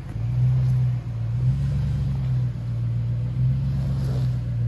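2003 Toyota 4Runner's 4.7-litre V8 running at low revs under load on a rock climb, its low note swelling and easing with the throttle about once a second.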